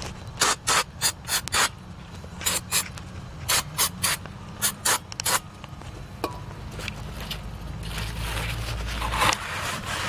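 A rag and gloved hand rubbing and wiping the hub mounting bore of a rear drum-brake backing plate during cleaning. A quick irregular run of short rubbing strokes in the first half gives way to a longer, continuous wiping rub in the last few seconds.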